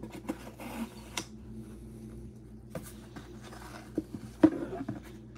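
Hands opening a cardboard trading-card box, sliding out its inner tray and lifting out a plastic card case: scattered light clicks, taps and a brief rustle, with a sharper knock about four and a half seconds in.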